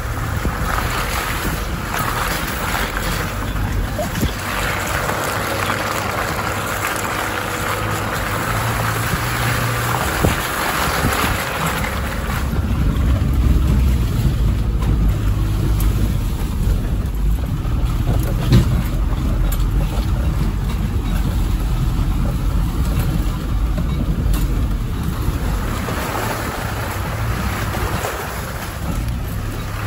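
Off-road 4x4 engine running as the vehicle drives the track, with its low rumble growing louder partway through, and wind buffeting the microphone.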